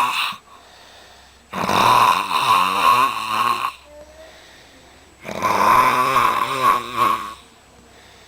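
Snoring in slow cycles: the end of one snore at the start, then two long snores of about two seconds each, with quiet breathing stretches between.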